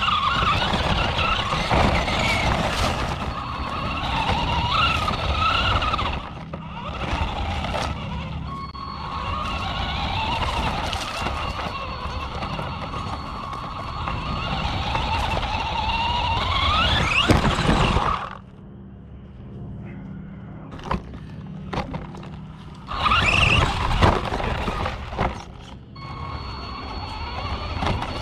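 Hosim RC truck's electric motor and gears whining, the pitch rising and falling with the throttle, over a rumble of tyres and chassis, heard from a camera mounted on the truck. About eighteen seconds in the whine climbs sharply and cuts off, leaving a few seconds of quieter clicks and knocks before the motor picks up again.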